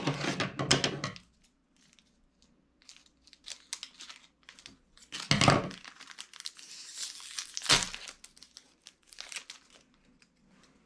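Pokémon booster pack wrapper being torn open and crinkled by hand: a dense burst of tearing at the start, scattered crinkles, then two louder rips about five and a half and nearly eight seconds in.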